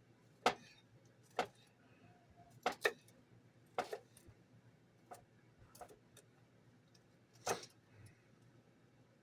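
Kitchen knife cutting bell pepper on a cutting board, with about nine sharp knocks at uneven spacing, roughly one a second, some in quick pairs.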